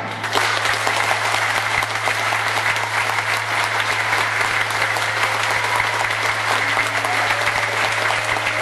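A large theatre audience applauding steadily, a dense even patter of many hands clapping, with a constant low hum underneath.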